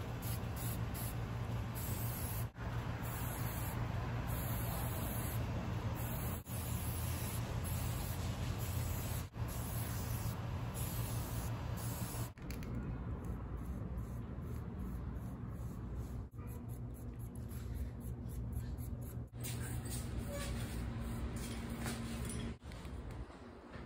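Aerosol rust-neutralizer can spraying onto rusty cast-iron parts: a steady hiss, broken by short gaps every few seconds.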